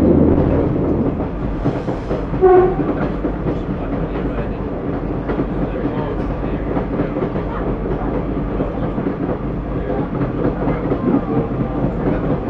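Class 142 Pacer diesel railbus running along the line: a steady diesel rumble with the wheels clicking over the rail joints. About two and a half seconds in comes a short horn toot, the loudest sound.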